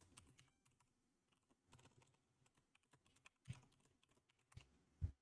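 Faint typing on a computer keyboard: scattered keystrokes, with a few sharper ones in the second half and the loudest just before the end.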